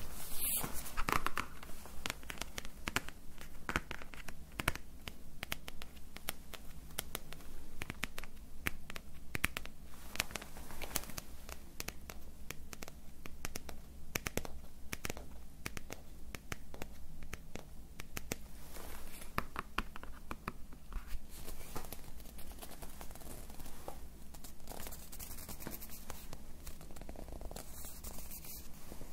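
Close-miked ASMR handling sounds: continuous crinkling and scratching, a dense run of small crackles and ticks.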